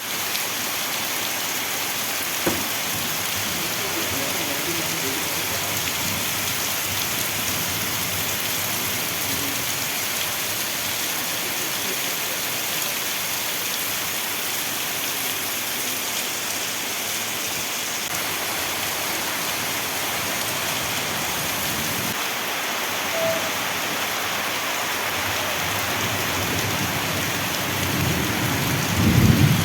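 Steady heavy rain falling, an even hiss, with one sharp tap a couple of seconds in. Near the end, thunder rumbles in low and grows louder.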